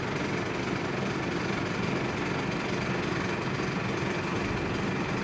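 Fire pumper truck's engine running steadily, a constant drone that does not rise or fall.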